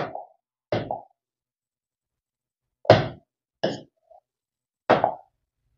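Stylus tapping on the glass of an interactive display: four short, separate taps, one about a second in, two close together around three seconds in, and one near the end.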